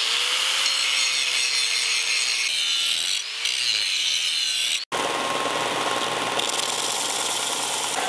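Angle grinder with an abrasive disc grinding metal off the back of a cast-aluminium belt buckle held in a vise, to thin the too-thick buckle. The sound cuts off sharply just before five seconds in. A belt sander then runs steadily as the buckle is pressed flat on its belt.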